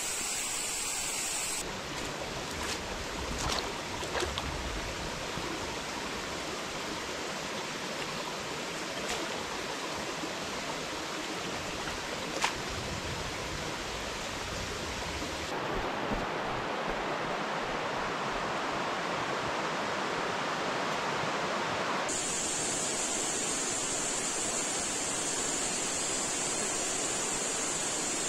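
Mountain stream water rushing steadily over rocks, its tone shifting abruptly about 2, 15 and 22 seconds in. A few soft knocks come between about two and four seconds in, and one sharp click about twelve seconds in.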